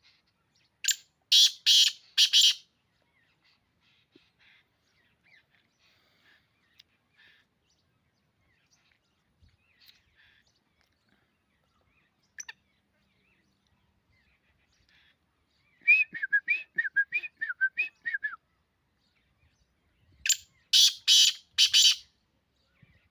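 Black francolin calling: two loud, harsh phrases of about four grating notes each, one about a second in and one near the end. In between, about two-thirds of the way through, comes a quick run of about ten short chirping notes, with faint scattered chirps elsewhere.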